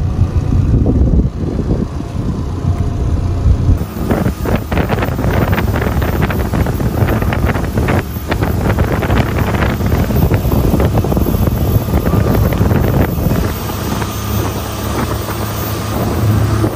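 Wind buffeting the microphone on a fast-moving motorboat, over the steady running of its engine. From about four seconds in, the wind noise turns harsher, with rapid crackling gusts.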